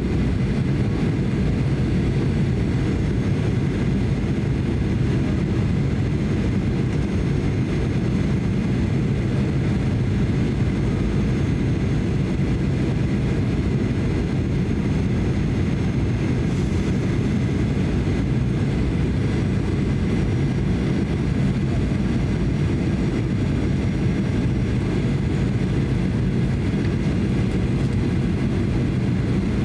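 Steady cabin noise inside a Boeing 737-800 on final approach: a low, even rumble of its CFM56-7B engines and the air rushing past the fuselage, with a faint steady whine above it.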